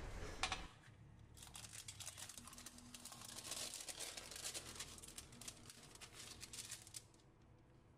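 Baking paper crinkling and rustling as it is peeled off a pressed peanut-and-biscuit slab, a dense crackle that stops about a second before the end. A few light knocks at the start as a metal baking tray is lifted away.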